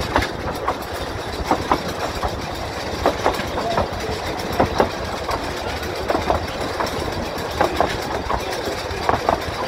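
Narrow-gauge railway carriage running along the track: a steady rumble of wheels on rail, with sharp clicks in pairs about every second and a half as the wheels cross rail joints.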